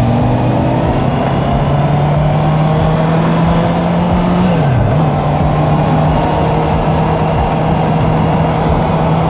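Honda CB650F inline-four engine running at steady cruising revs, with wind rushing over the microphone. About five seconds in the revs dip briefly and come back, settling a little lower.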